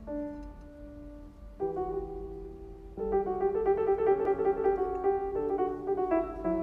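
Piano music: a few slow, held notes, then about three seconds in a louder passage of quicker notes.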